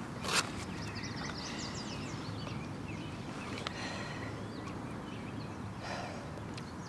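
Small birds chirping in short high notes over a steady low outdoor background noise, with a brief rustle just after the start and a single click about midway.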